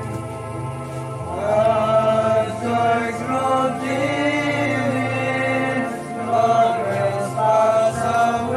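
Slow, chant-like choral singing with sustained, gliding notes over a steady low drone.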